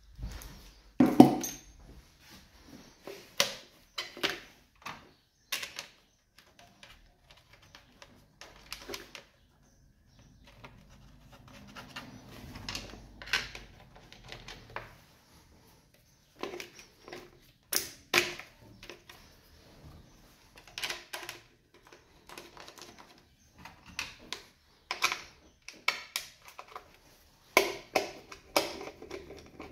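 Irregular metallic clicks, clinks and knocks of hand tools and parts being handled in a car's engine bay, with the sharpest knocks about a second in and again near the end.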